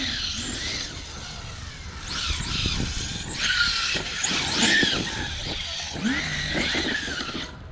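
Large-scale 30° North 5T RC truck's 12S brushless electric drive whining up and down in pitch as it is throttled hard, over a steady rumble of the tyres.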